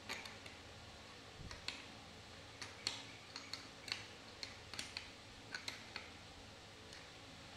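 Metal clicks of an open-end spanner on the nut of a steel hold-down clamp as it is tightened: about a dozen faint, irregular clicks that stop about six seconds in.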